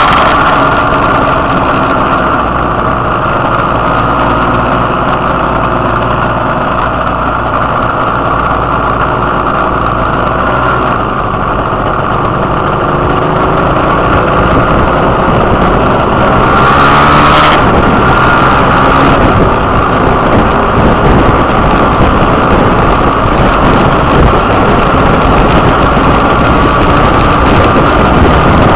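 Motorbike engine running at road speed, its pitch rising and falling with the throttle, under heavy wind rush on the microphone. About halfway through there is a brief, louder rush.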